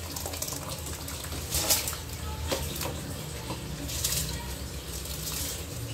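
Washed rice being poured from a steel bowl into a pot of boiling water, with a few short splashes over a steady low hum.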